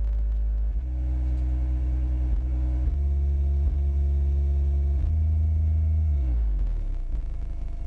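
Subwoofer playing deep bass notes from the amplifier under test, holding steady pitches that step between a few low notes. Near the end the pitch slides downward and the bass stops about seven seconds in.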